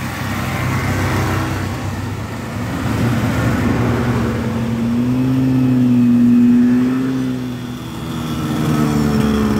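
Vintage two-stroke snowmobiles driving past one after another, their engines swelling as each one nears, loudest about six seconds in, with another sled coming close near the end.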